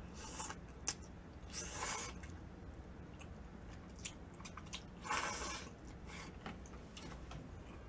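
Udon noodles being slurped and chewed: three short slurps, with small mouth clicks and chewing between them.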